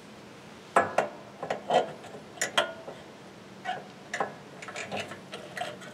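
Irregular clicks and light metallic knocks of brass pipe fittings being handled and pushed onto a small engine's carburetor intake, some with a short ring.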